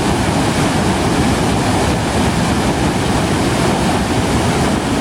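Ristafallet waterfall rushing: a loud, steady wash of falling water with no change in it.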